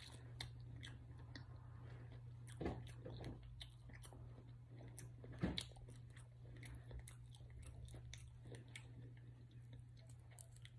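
Soft chewing and biting of a chicken wing, with many small mouth clicks and two louder bites about two and a half and five and a half seconds in, over a steady low hum.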